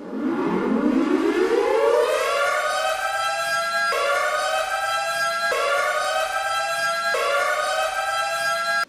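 Custom hockey goal horn with a siren sound: it winds up, rising in pitch over about three seconds, then dips and climbs again three times, about every one and a half seconds. It cuts off at the end and starts winding up again.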